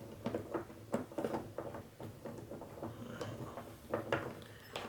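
Two hex keys tightening the locking screw on a suitcase wheel's axle: a run of small irregular metal clicks and scrapes, bunched in the first second and a half and again near the end.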